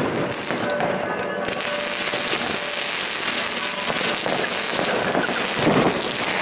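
Fireworks going off: scattered crackles and bangs, then about one and a half seconds in a steady high hiss starts as a firework sprays a column of sparks up from the ground.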